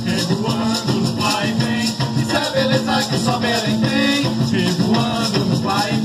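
A carimbó band playing live: shaken maracas and hand drums keep a steady, busy beat under a pitched melody line.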